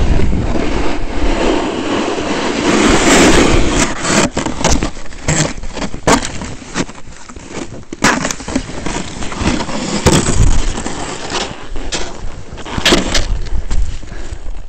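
Skis scraping and chattering across hard snow on a fast descent, with many sharp rasps, and wind rumbling on the microphone, heaviest in the first second and again around ten seconds in.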